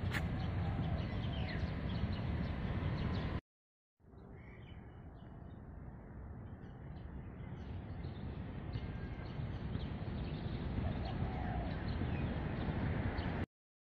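Outdoor ambience: a steady low rumbling noise with birds chirping now and then. The sound drops out completely for about half a second around three and a half seconds in, then fades back up, and cuts out again briefly near the end.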